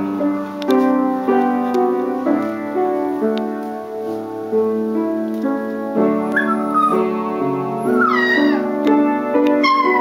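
Piano playing a melody, joined from about six seconds in by a seven-week-old Australian terrier puppy singing along in high, wavering howls that slide down in pitch.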